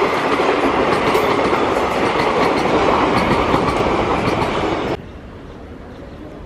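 Passenger coaches of an express train rushing past at speed, a loud rush of wheel and rail noise with clattering wheels. It cuts off suddenly about five seconds in, leaving only faint background noise.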